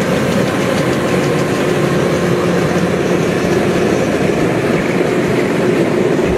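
Kubota DC-93 rice combine harvester's diesel engine running steadily under load as the machine cuts and threshes rice.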